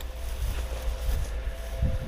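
Wind buffeting the camera's microphone, a steady low rumble with a few faint ticks.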